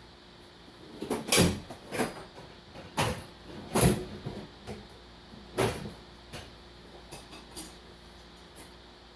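Irregular knocks and clunks, about five loud ones followed by a few lighter ones, as the installer tool drives the rear main seal and wear ring onto the 7.3 Powerstroke crankshaft.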